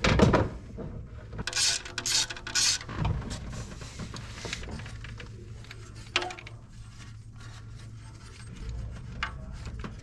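Hand tools knocking, rasping and clicking against the engine as a spark plug is loosened and unscrewed with a socket wrench: a sharp knock at the start, a few short rasps a second or two in, then light scattered clicks.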